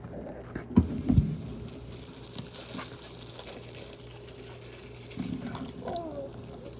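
Faint handling noises of a clear plastic bag of water being squeezed and twisted: a couple of soft knocks about a second in, then light crinkling from about five seconds in, over a low steady hum.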